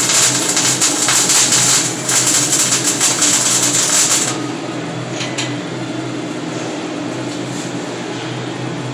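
Flux-core arc welding: the arc crackles and sizzles for about four seconds, then stops abruptly, leaving a steady machine hum from the welder.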